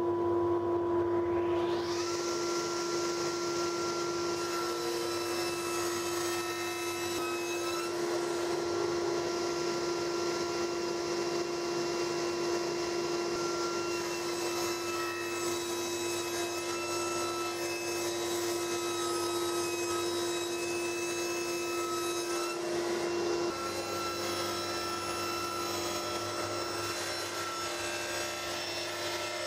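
Sliding table saw running with its dust extraction, a steady mechanical hum. The higher whine builds over the first couple of seconds as the blade comes up to speed, then a board is fed through the blade. The hum shifts a little past two-thirds of the way in.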